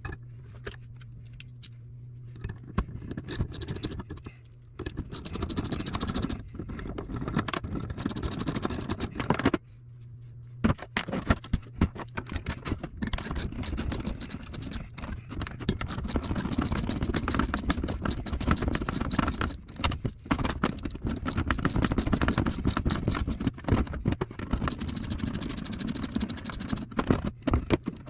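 Metal parts and tools clattering and rattling as food service scales are taken apart for scrap, with a few short stretches of a high-pitched whir.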